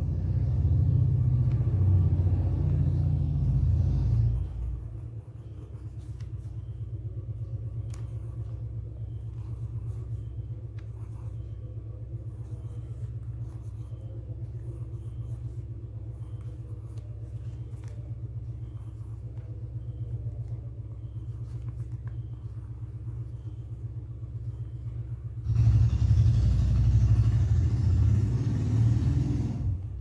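A low, steady rumble that is louder for the first four seconds and again for a few seconds near the end, with faint high ticks at an even pace in between.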